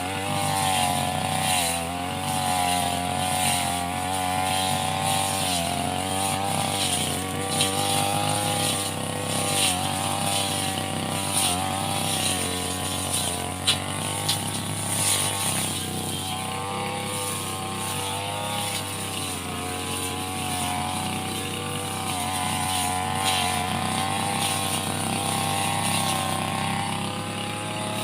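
Small two-stroke brush cutter engine running at high speed, its pitch wavering up and down as it cuts grass. One sharp click about halfway through.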